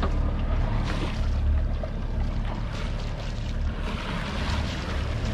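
Sailing yacht motoring under its inboard engine: a steady low engine hum, with wind and water noise rushing over it.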